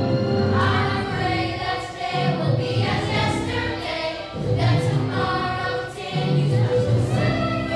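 A group of children singing together over a musical accompaniment.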